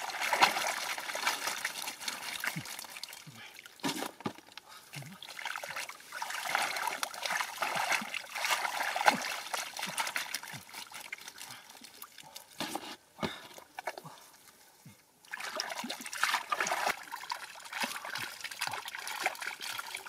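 Wet mud sloshing and muddy water trickling out through a perforated plastic basket as mud is scooped up by hand and sifted for fish. It comes and goes, with a short lull about two-thirds of the way through.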